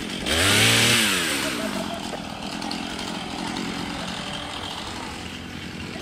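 Chainsaw revved hard for about a second and a half, its pitch rising and then falling back, then running on steadily at idle.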